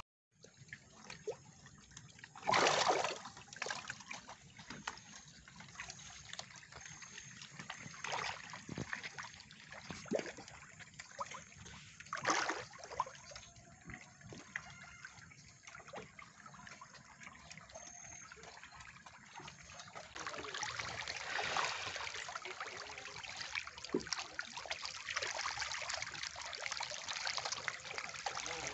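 Water splashing as a dense school of tilapia thrashes at the surface of a floating net cage. There are a few sharper splashes in the first half, and about two-thirds of the way through the splashing becomes denser and continuous.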